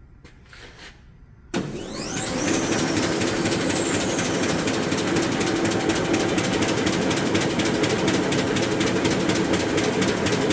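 Arter A3-12 rotary surface grinder started up: the motor comes on suddenly about a second and a half in, whines up in pitch over about a second, then runs steadily. Its flat spindle belt gives a rapid, even clicking from the seam in the belt.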